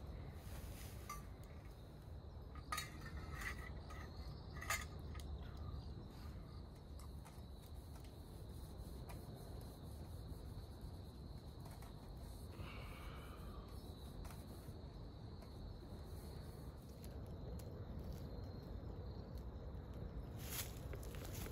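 Faint, steady insect trill over quiet outdoor ambience, with a few light clinks of camp cookware in the first five seconds.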